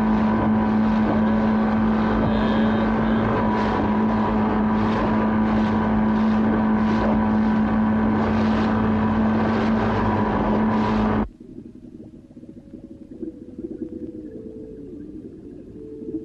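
Outboard motor on a small open boat running at a steady pitch while the boat cuts through choppy water, with repeated short splashing hisses. About eleven seconds in it cuts off abruptly, leaving a much quieter low rumble.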